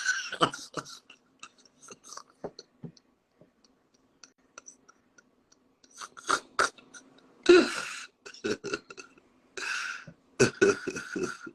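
Short bursts of a person's voice without words, starting about six seconds in after a stretch of scattered faint clicks, over a faint steady hum.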